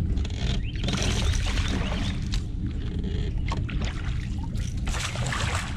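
Hooked bass thrashing at the surface beside the boat, splashing in two bursts, about a second in and again near the end.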